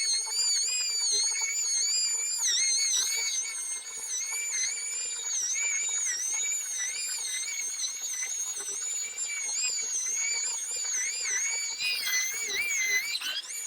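Air-powered dual-action (DA) sander with 1500-grit paper colour-sanding a car's clear coat: a high whine that wavers up and down in pitch as the sander is worked over the panel. A faint low hum joins about three seconds in.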